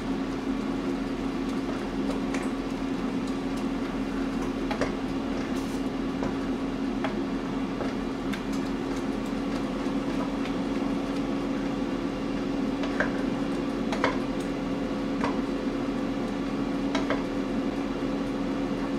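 Air fryer running with a steady fan hum, with a few light clinks scattered through it.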